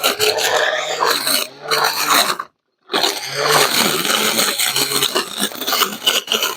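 Cordless 21-volt lithium-ion brush cutter running and cutting grass: a steady motor hum under the rasp of the cutting head through the grass. The sound drops out completely for a moment about two and a half seconds in.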